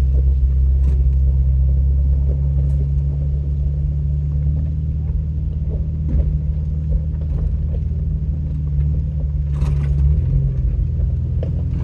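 A vehicle's engine and drivetrain drone steadily, heard inside the cabin while driving an off-road track, with scattered knocks and rattles. The engine note changes about ten seconds in.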